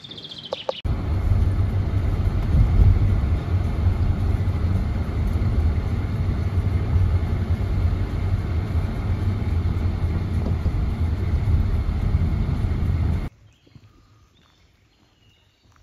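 Steady low rumble of a car's engine and tyres heard from inside the moving cabin. It cuts off abruptly near the end, leaving quiet outdoor air with faint chirping.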